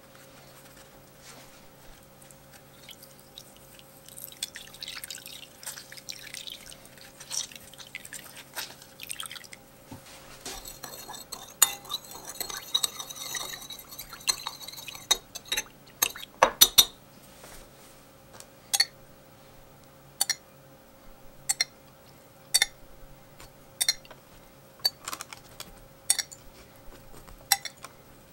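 Grapefruit juice squeezed and dripping into a glass bowl of sugar, then a spoon stirring the juice and sugar in the glass bowl with gritty scraping and clinks. Near the end, single sharp clinks of the spoon against the glass come about once a second.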